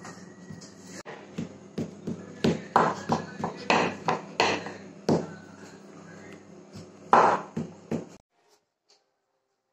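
Wooden rolling pin knocking and rolling on a granite countertop: an irregular run of hard knocks, some loud, that stops suddenly near the end.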